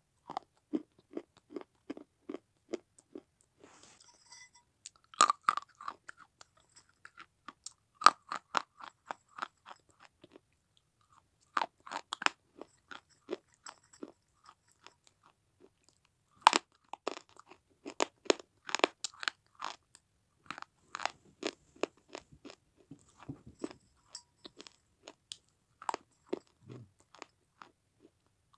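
A person crunching and chewing pieces of baked red clay. The brittle crunches come in quick runs of two or three a second, with a few louder sharp cracks among them.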